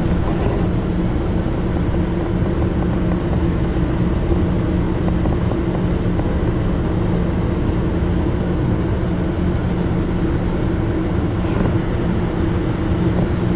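A fishing boat's engines running steadily, a constant low hum under the wash of wind and water.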